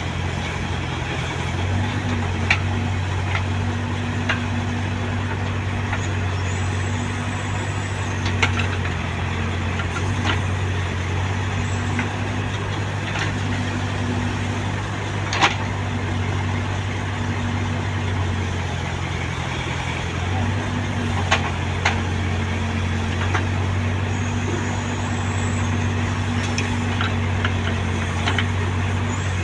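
Heavy diesel earth-moving engine running steadily at a low, even pitch, with about a dozen short, sharp knocks scattered through.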